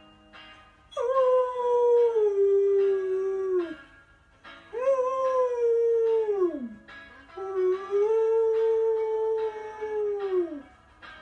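Samoyed howling: three long howls, each holding a fairly steady pitch and then sliding down as it fades, with short pauses between them.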